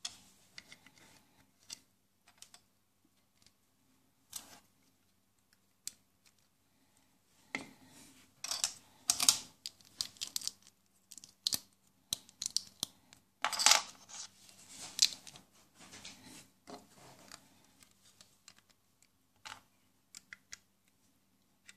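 Plastic toy building bricks being handled and pressed together: scattered sharp clicks, with two spells of busier clicking and rattling about a third of the way in and again past the middle.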